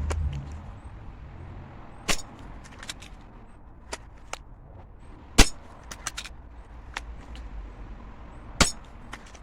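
Three sharp shots from a spring-powered break-barrel .22 air rifle, about three seconds apart with the middle one the loudest, and lighter clicks between them. A low rumble fades out in the first half second.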